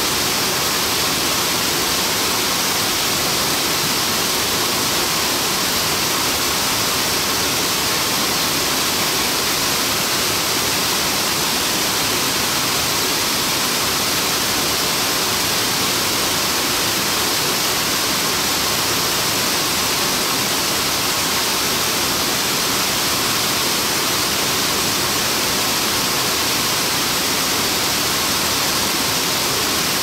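Steady rush of Nabegataki, a wide curtain waterfall, pouring into its plunge pool, heard from the hollow behind the falling water. A loud, even hiss that does not change.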